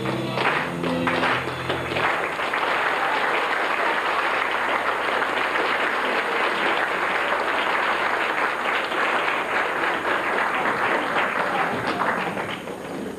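The last notes of a song, then an audience clapping for about ten seconds, dying away near the end.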